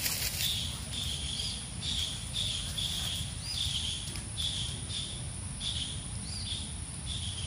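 Small creature chirping outdoors: short, high calls repeated steadily, two or three a second, some with a quick upward flick, over a low rumble.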